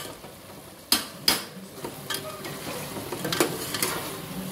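Steel spoon stirring chicken in a metal cooking pot, clanking and scraping against the pot's sides with several sharp knocks, the two loudest about a second in.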